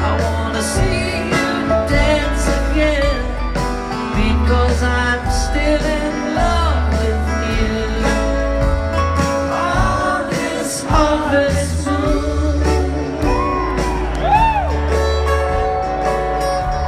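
Live string band playing with a lead vocal over acoustic guitar and upright bass, recorded from the audience. Deep bass notes last about a second each.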